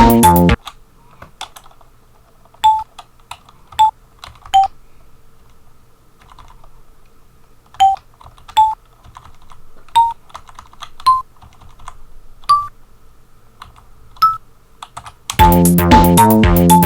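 Computer keyboard keypresses entering notes into a Renoise tracker pattern, about a dozen separate clicks, most sounding a short note from the Amiga soundtracker sample at a different pitch each time. A chiptune-style tracker tune plays loud, stops about half a second in, and starts again near the end.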